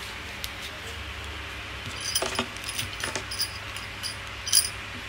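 Shop background with a steady low hum. From about two seconds in come scattered light clicks and clinks of small hard objects, the loudest near the end.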